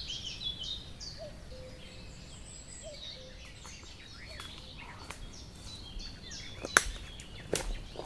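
Woodland birds calling in short chirps over a quiet outdoor background. Near the end come two sharp snaps of footsteps on twigs and leaf litter as someone walks through the undergrowth.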